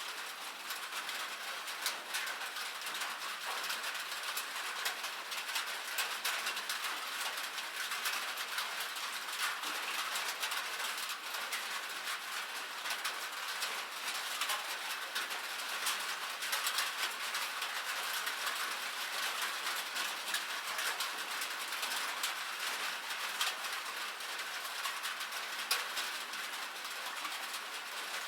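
Rain pattering on a cabin roof: a steady hiss thick with fine, quick drop ticks, no thunder.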